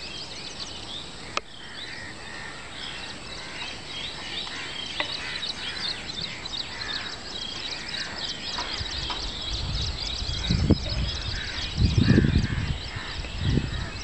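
Many birds calling in quick, overlapping chirps, a dense outdoor chorus. A few low rumbles come in about ten seconds in and again near the end.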